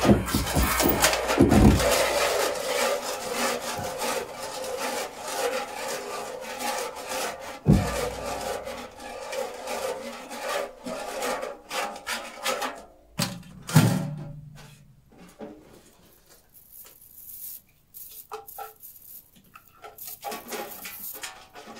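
Free-improvised live music of dense scraping and rubbing sounds, with a low thud about a third of the way in and another after about 14 s; after that it thins out into sparse, quiet scrapes.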